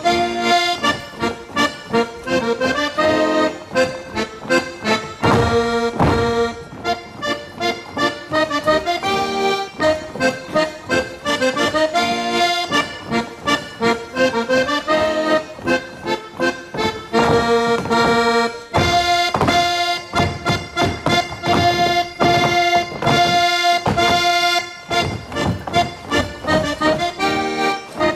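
Accordion playing a lively folk waltz tune with a rhythmic pulse, with a stretch of held chords about two-thirds of the way through.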